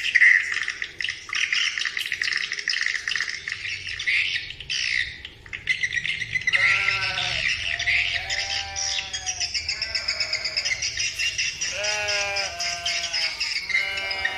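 Swiftlet lure call played through an Audax AX-6 waterproof horn speaker: a dense, continuous high-pitched twittering of chirps. From about halfway in, short bursts of lower-pitched chirping calls repeat every second or so.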